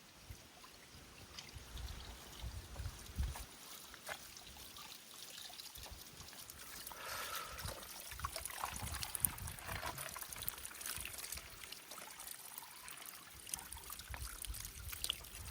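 Faint running water of a mountain stream trickling, with scattered sharp clicks and a few low thuds.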